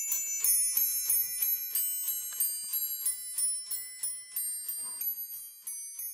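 Small brass bells on a toy-soldier Christmas bell display struck in turn, ringing out a tune at about five strikes a second and growing fainter toward the end.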